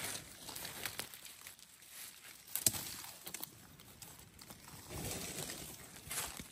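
Dry leaf litter and twigs rustling and crackling with irregular small clicks, and one sharp snap about two and a half seconds in.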